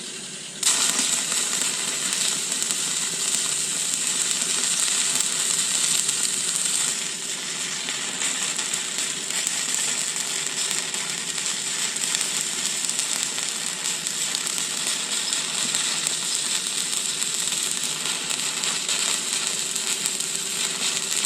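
Stick-welding arc struck with a 6013 electrode about a second in, then a steady sizzle as the rod lays a cap pass at about 80 amps.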